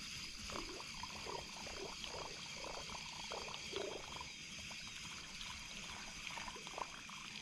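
River water gurgling and trickling along the bank in small irregular splashes, busiest in the first few seconds, with a faint steady high-pitched hum above it.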